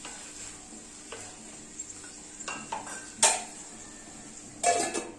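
Wooden spatula stirring chopped vegetables in a metal kadai, with light knocks against the pan. There is a sharp clank about three seconds in and a louder, briefly ringing clank of pan on metal near the end.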